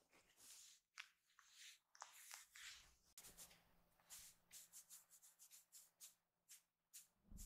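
Faint rustling and scratching of a kitten's paws on a fabric sofa cover as it plays and moves about, in short scattered scuffs, with a single thump right at the very end.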